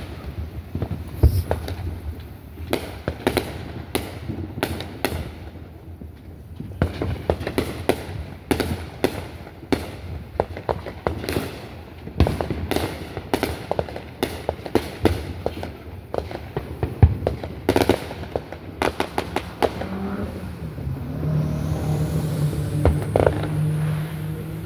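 Aerial fireworks going off: a rapid, irregular string of bangs and crackles, some sharp and loud, others more distant. Near the end the bangs die away and a car engine comes in, its pitch rising as it accelerates.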